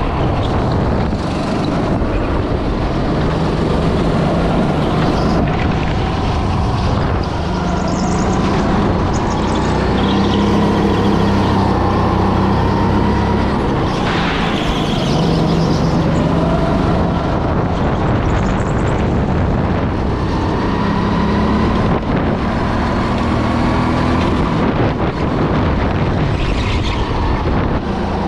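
Go-kart engine running hard through a lap, its pitch rising and falling again and again as the kart accelerates and slows.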